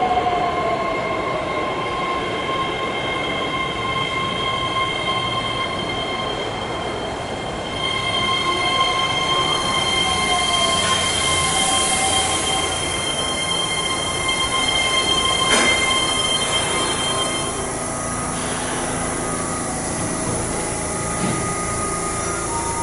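Keihan electric train at an underground station platform: a continuous rumble with a high whine of several steady tones that fade out about eighteen seconds in, and a brief click near the middle.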